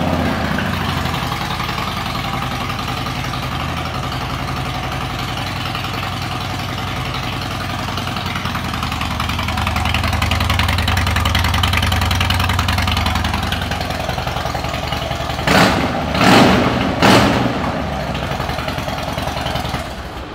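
2012 Harley-Davidson Switchback's Twin Cam 103 V-twin idling through aftermarket Python exhaust pipes, with three quick revs a little past the middle. The engine is shut off just at the end.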